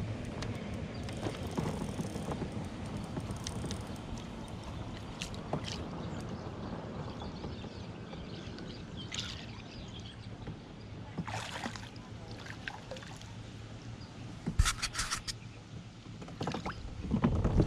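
Water lapping against a fishing kayak's hull, with a steady rush of outdoor air on the microphone and scattered small knocks of gear in the boat. A quick run of sharp clicks comes about three-quarters of the way through, and a louder bump of handling noise near the end.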